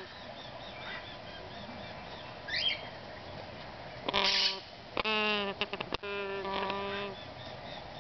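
Yellow-naped amazon parrot chicks calling: a short chirp, then about halfway through a run of nasal, honking squawks, one of them falling in pitch, with faint high chirping in the first couple of seconds.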